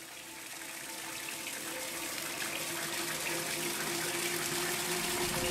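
Rushing, water-like noise fading in and growing steadily louder, with a few steady tones held beneath it.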